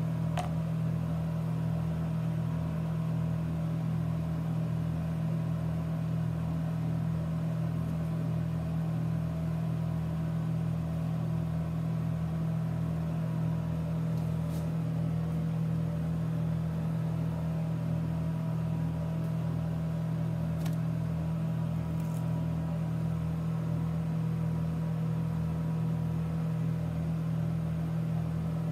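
Steady low mechanical hum with a slow, regular throb underneath, and a few faint clicks.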